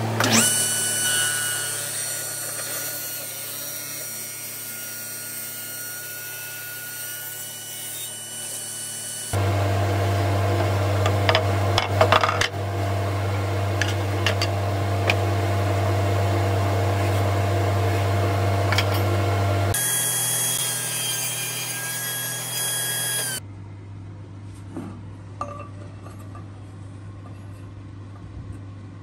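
Table saw running and cutting walnut: a steady motor whine in several short clips, with the loudest cutting about ten to thirteen seconds in. The last few seconds are quieter, with a few light taps.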